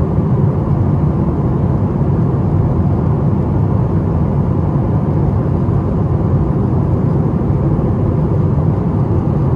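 Steady low drone of a Boeing 737-700 in flight, heard inside the cabin: airflow and the CFM56 turbofan engines blending into an even, unchanging rumble.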